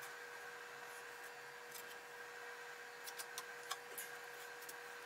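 Steady hum of shop background noise, with a few light wooden taps and clicks about three to four seconds in as a glued pine strip is set and pressed onto a plywood pallet deck.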